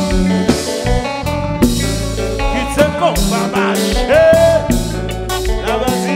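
Live konpa band music: electric guitar over bass and a drum kit. Around the middle a lead line slides up into long held notes.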